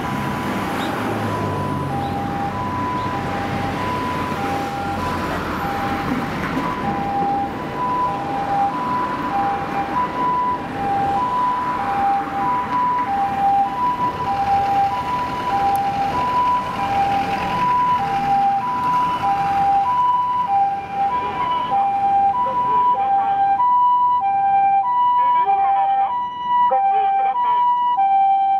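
Japanese ambulance's two-tone hi-lo siren, a higher and a lower note alternating steadily, over road traffic noise. It grows louder and fuller near the end as the ambulance draws closer.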